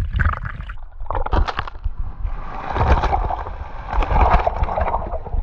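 Seawater splashing and sloshing over a camera held at the surface as a person jumps in feet-first close by. The splash noise surges in about two seconds in and stays heavy for most of the rest, over a low rumble of water against the microphone.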